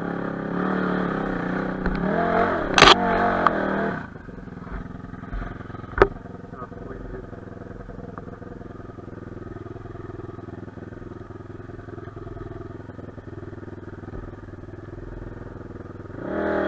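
Enduro motorcycle engine revving unevenly for the first few seconds, with a sharp loud crack about three seconds in, then settling to a lower steady running for the rest; a single sharp click about six seconds in.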